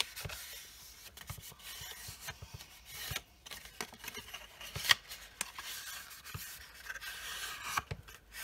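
Patterned designer paper being folded along its score lines and creased with fingernails: paper rustling and rubbing, with small crackles and one sharper crackle about five seconds in.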